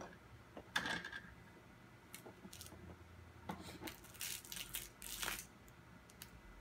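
A spoon clinking and scraping against a bowl of baby cereal while scooping and feeding: a few faint, separate clicks, the sharpest about a second in, then a quick run of scrapes and clicks a few seconds later.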